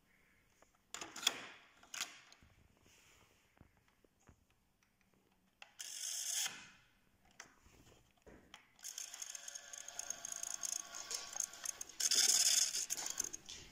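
Toshiba PC 5847F cassette deck's tape transport clicking as its keys are pressed. From about nine seconds in, a continuous run of small rapid clicks follows as the tape winds at speed.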